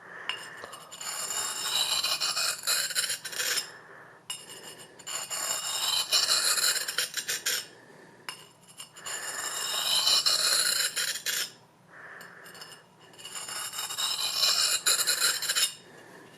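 Forged railroad-spike knife blade scraping along a large sharpening stone, in four spells of strokes with short pauses between.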